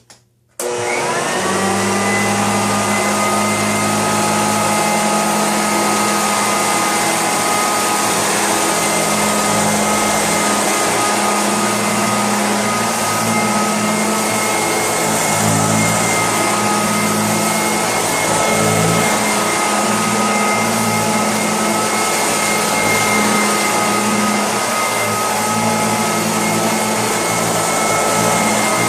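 Sanitaire SC887 bagless upright vacuum cleaner switched on about half a second in, its motor spinning up to a steady high whine over a rush of airflow, and running on evenly.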